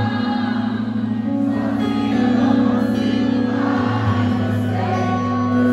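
Live worship band playing through a PA, with singing and guitar over long held chords.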